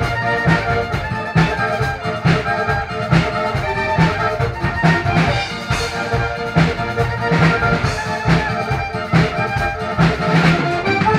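Instrumental music led by accordion over a steady beat of about two strokes a second, in the style of Tyrolean folk music.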